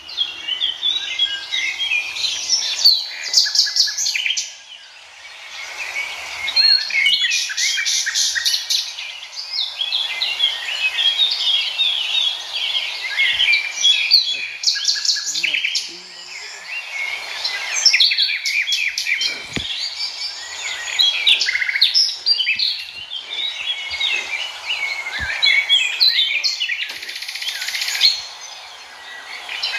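A dense chorus of many forest birds chirping and calling over one another, with rapid trills coming in again and again.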